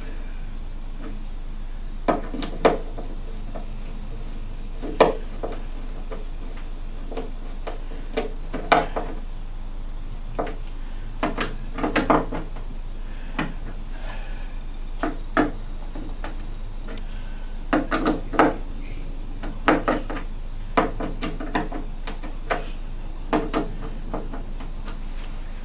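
Screws being tightened by hand into a speaker cabinet to hold a tweeter in place: irregular clicks, knocks and rattles of the screwdriver and screws against the cabinet, with a steady low hum underneath.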